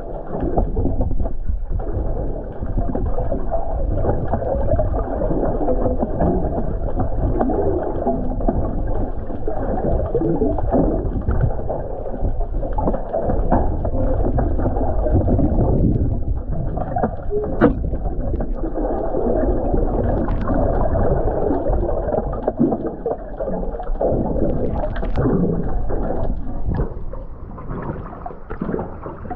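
Muffled, steady rush of wind and water around a small fishing boat at sea, with irregular knocks and splashes.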